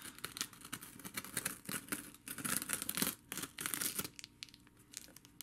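Packaging being torn open by hand: a dense run of short ripping and scraping noises, with the louder rips about 2.5 and 3.8 seconds in.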